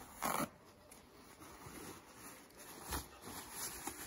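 Paper towel ripped off a roll in one short tear about a quarter second in, then soft rustling of the paper as it is pressed and patted onto a raw octopus to dry it. A short knock comes about three seconds in.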